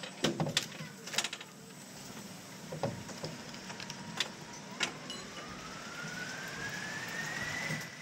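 Roller coaster train knocking and clacking a few times as it runs onto the lift hill, then a rising whine as the lift drive speeds up. The whine climbs for about three seconds and levels off into a steady tone near the end.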